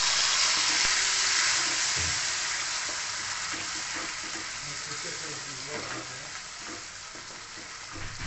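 Ground onion-tomato masala paste sizzling as it hits hot oil in a kadhai, stirred with a wooden spatula. The sizzle is loudest at first and dies down steadily as the wet paste cools the oil.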